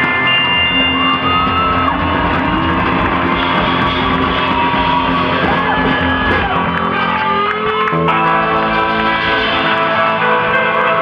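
Live rock band playing loudly, electric guitars and bass through amplifiers, with shouting over the music; about eight seconds in the held notes change.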